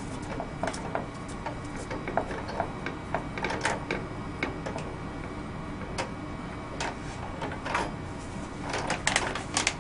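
Metal laboratory scissor jack being raised by turning its screw knob under a heating mantle: a run of small irregular clicks and rattles, busiest near the end.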